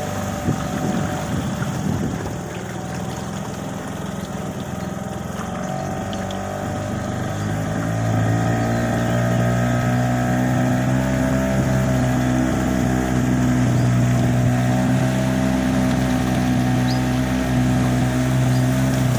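Small boat's engine running steadily through floodwater, growing louder about eight seconds in.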